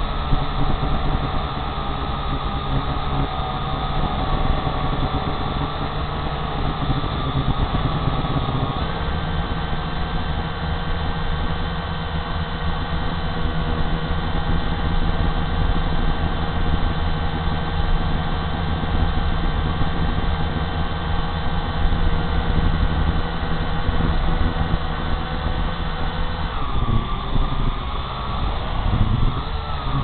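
Small quadcopter drone's electric motors and propellers whining steadily, heard through its onboard camera, over a low rush of prop wash. The whine steps up in pitch about nine seconds in and drops back near the end.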